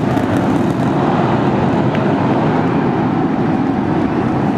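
The 33 Raptor engines of SpaceX's Super Heavy booster firing at liftoff: a loud, steady, deep rumble of dense noise.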